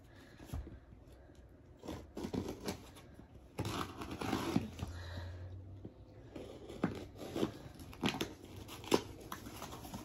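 A cardboard shipping box being opened by hand: tape and cardboard tearing and scraping in irregular spells, with a few sharp clicks in the second half.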